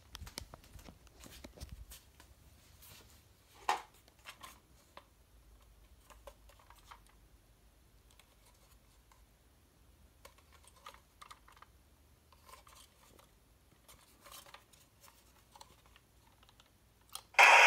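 Faint handling noises: scattered clicks, taps and fabric rustles. Near the end, the animated zombie prop's speaker suddenly starts a loud electronic sound effect, set off by the toy shotgun.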